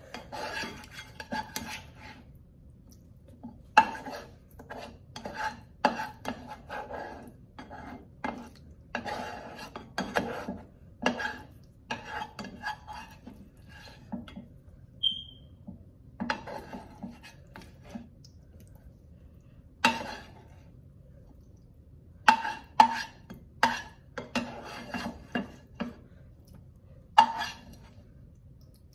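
A spoon scooping macaroni and cheese from a bowl, scraping and clinking against it in irregular strokes. Several of the clinks ring briefly.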